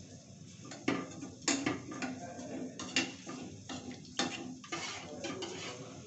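Metal pots and utensils clinking and knocking: about half a dozen sharp, irregularly spaced clinks, each with a short ring.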